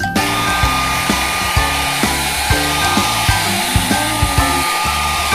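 Handheld blow dryer running steadily, drying a wet Chihuahua's fur, with plucked background music playing over it.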